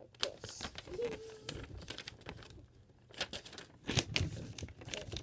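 Sheet of paper rustling and crinkling as it is handled and creased into a paper airplane, a run of short crackles with the sharpest about four seconds in.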